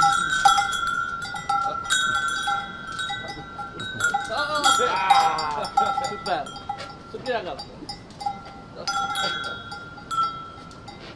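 Turkish ice cream (dondurma) vendor's bell hung over the stall, struck again and again in quick ringing metallic clangs, thinning out in the second half.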